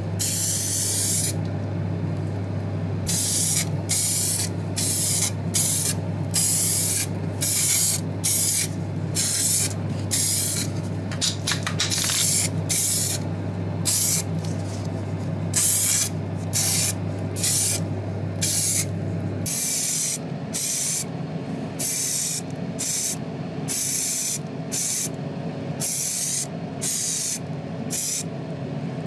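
Paint spray hissing as small diecast model parts are sprayed with epoxy primer: one longer burst at the start, then short bursts about once a second. A steady low hum runs underneath and changes to a higher drone about two-thirds of the way through.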